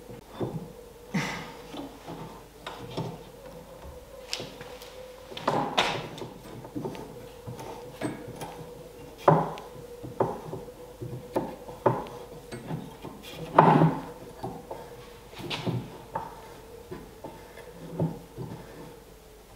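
Scattered wooden knocks, clicks and rubbing as wooden crossbow parts are handled and fitted on a workbench and a clamp is adjusted, the loudest knocks about nine and fourteen seconds in. A faint steady hum runs behind.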